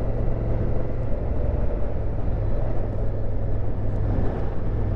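2019 Honda Africa Twin CRF1000L's parallel-twin engine running steadily under way, mixed with wind and road noise.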